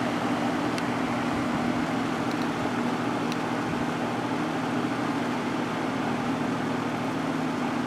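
Vintage GE F15W13 box fan running steadily on medium speed, warmed up: an even rush of air over a steady low motor hum.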